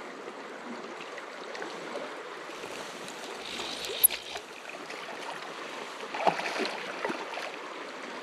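Steady rush of a river, with a few sharp clicks and knocks; the loudest comes about four seconds in.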